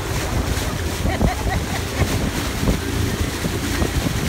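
Wind buffeting the microphone over the steady rush of a pontoon boat under way and its churning wake, with brief faint voices about a second in.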